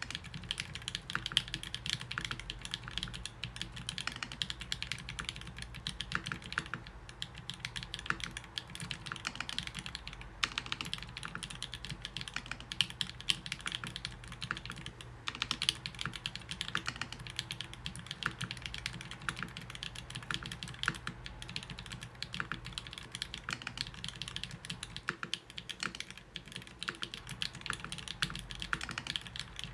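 TGR Jane v2 mechanical keyboard with lubed OG Holy Panda tactile switches on a brass plate, typed on steadily: a dense, continuous clatter of keystrokes with only a few short pauses.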